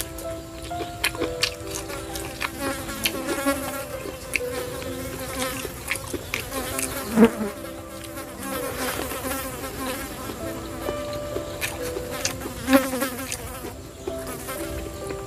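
Buzzing tones that hold and shift between a few pitches, over frequent small clicks and smacks of eating blood cockles by hand.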